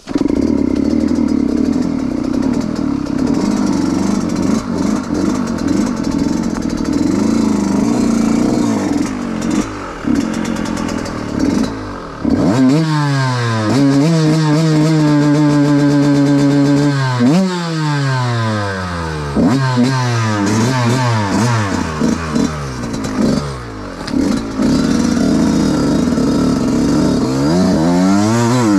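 Trail motorcycle engine running steadily, then revved up hard about twelve seconds in. It holds high revs for a few seconds and drops back, followed by several more rises and falls of the revs toward the end.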